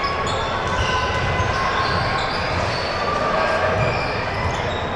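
Basketball game in a gym: the ball bouncing on the court amid a steady murmur of crowd voices, with short squeaks and knocks.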